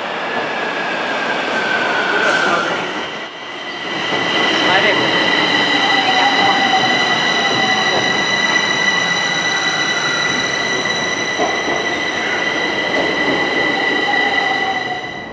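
Bucharest metro train pulling into an underground station and slowing: a loud rush of wheels on rail that builds over the first few seconds, with a steady high whine and slow squeals that slide down in pitch as it brakes. The sound cuts off abruptly near the end.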